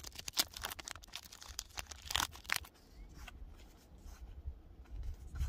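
Foil wrapper of a Pokémon booster pack being torn open and crinkled, a quick run of crackling rips for the first two and a half seconds, followed by quieter rustling as the cards are slid out and handled.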